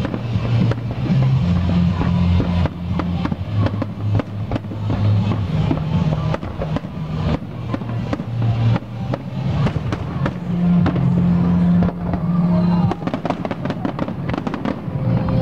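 Fireworks display: aerial shells bursting with many sharp bangs and crackles. Under them runs loud music with held bass notes, the soundtrack of a pyromusical show.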